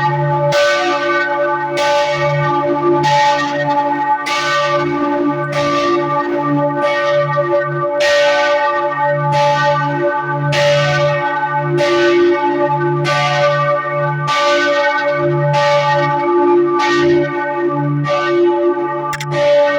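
Freiburg Cathedral's church bells ringing the noon peal. Strikes come a little more than once a second and ring on into one another over a deep, continuous hum.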